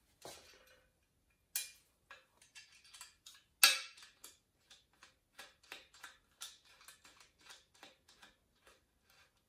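Light metallic clicks and taps, a few a second and uneven, as a piston oil jet and its banjo bolt are fitted and threaded into a Honda K24A3 engine block by hand, with one sharper knock about a third of the way in.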